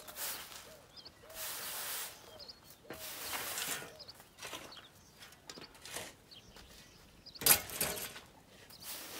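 Wide push broom sweeping over dry, dusty dirt: a scratchy swish with each stroke, about one every second or so, with a sharp knock about two-thirds of the way through. Birds chirp in the background.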